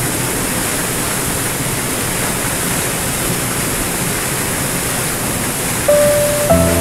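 Small waterfall cascading over rocks into a foaming pool, a steady rush of falling and splashing water. Near the end, soft piano notes come in over it.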